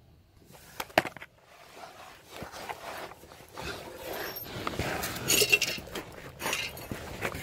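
Handling and movement noise: several sharp knocks, the loudest about a second in, over irregular rustling and scraping that grows louder in the second half.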